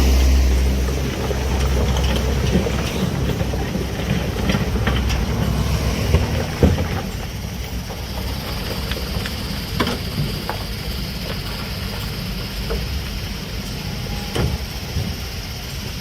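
Diesel engine of heavy earthmoving machinery running with a low rumble that is loudest at first and eases about a second in, with occasional sharp clanks and knocks.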